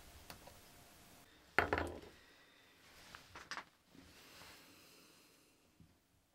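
Small metal hand tools and silver stock handled on a wooden workbench: one sharp knock with a short ring about a second and a half in, then a few light clicks and a soft scrape.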